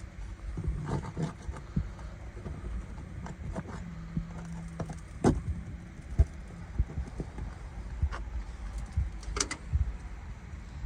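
Scattered knocks, clicks and scrapes of a hand tool prying under asphalt roof shingles to pull the roofing nails, the sharpest knocks about five and six seconds in and again near the end, over a low rumble.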